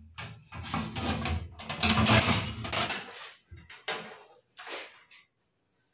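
Scraping and clanking of metal on metal and wood as a steel bar is clamped over a fridge evaporator plate on a wooden bench, with adjustable spanners tightening the end clamps. About three seconds of scraping and rustling, then a few separate knocks.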